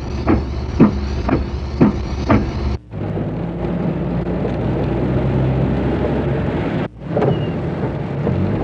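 Traffic and a car engine running under a steady hiss, with abrupt cuts in the sound about three and seven seconds in. Over the first stretch come five short falling-pitched sounds, about half a second apart.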